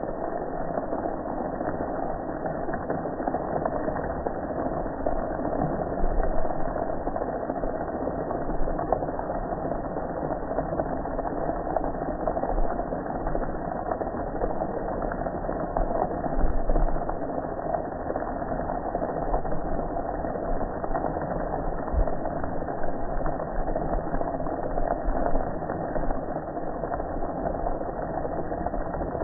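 Pressure washer running steadily, a continuous engine-like drone with the hiss of its water jet hitting a soapy gas grill.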